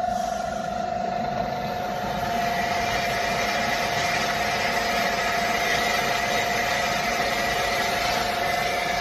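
The drilling head of a CNC plasma cutting table drilling into metal plate: a steady whine from the spindle, joined about two seconds in by a harsher cutting noise as the bit bites into the plate.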